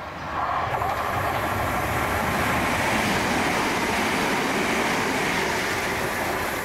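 Southern Class 377 Electrostar electric multiple unit running along the platform: wheel-on-rail noise that jumps up sharply about half a second in, then holds steady and loud.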